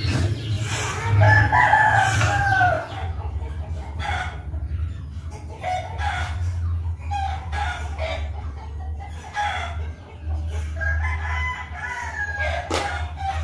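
Rooster crowing twice: one long crow with a falling end about a second in, and another near the end, over a steady low hum.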